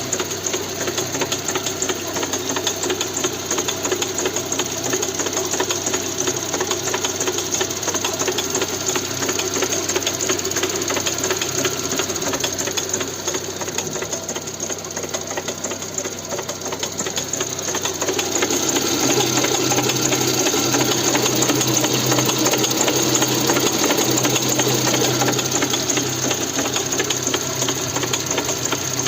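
Lada Granta FL engine running with a fast, even knocking clatter that the owner treats as an engine fault. It grows louder about two-thirds of the way in.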